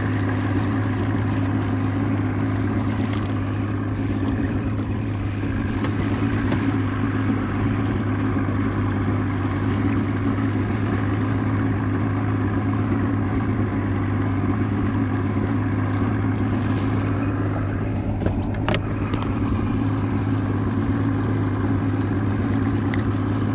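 Outboard motor running steadily at trolling speed with an even low hum, and a brief sharp click about three quarters of the way through.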